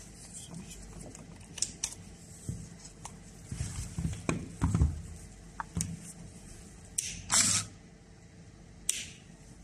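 Handling noise: scattered clicks and light knocks, a few heavier low thumps around four to five seconds in, and a short hiss about seven seconds in.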